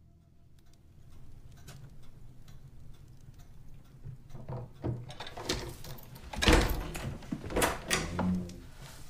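A wooden door being opened: a few faint clicks, then a sharp knock of the latch and door about six and a half seconds in, with further knocks and steps after it.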